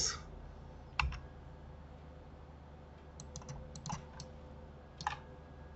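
Scattered clicks of a computer keyboard and mouse: a sharper click about a second in, a quick run of light clicks between three and four seconds, and another click near five seconds.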